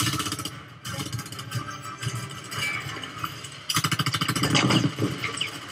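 Bursts of rapid automatic gunfire: a burst at the start, scattered shots after it, then a longer, louder burst over the last two seconds.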